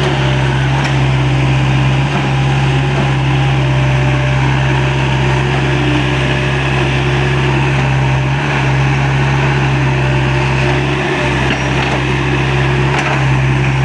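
Excavator's engine running steadily at a constant speed, a loud unbroken low hum with mechanical noise over it.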